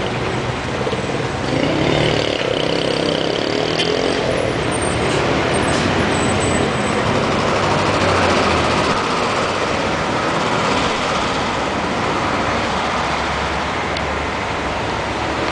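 Steady city road traffic: cars and buses driving past, with engine rumble and tyre noise.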